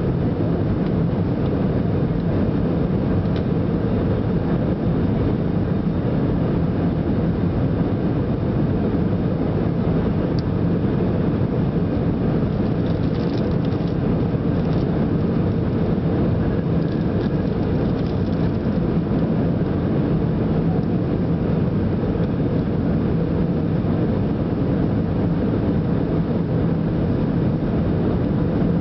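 Steady cabin noise of an Airbus A320-family airliner on approach: engine and airflow noise with a low hum, unchanging throughout.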